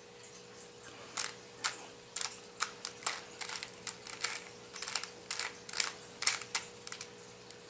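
Plastic Rubik's cube layers being turned by hand, a quick run of irregular clicks and clacks starting about a second in, over a faint steady hum.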